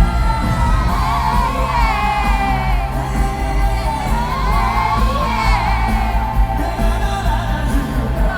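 Male pop vocalist singing live over amplified backing music through a concert sound system, captured on a phone.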